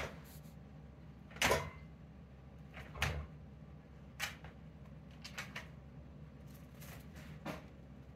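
Wire dog crate rattling and clicking as a Siberian husky pushes in at the door with the puppy inside: a handful of short, irregular clicks and knocks, the loudest about a second and a half in.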